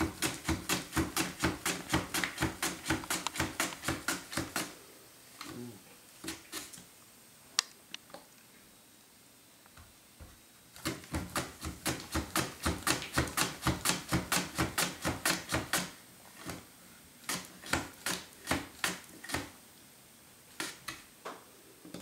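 Red potatoes pushed back and forth across a mandoline slicer's blade, a fast run of crisp slicing strokes at about four a second. The strokes pause for several seconds in the middle, with a few single clicks. A second fast run follows, then the strokes come more slowly near the end.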